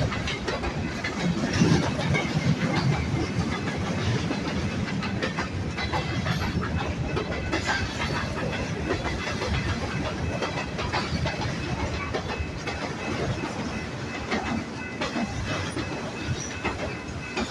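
Freight train rolling steadily past, its steel wheels clicking and clattering over the rail joints.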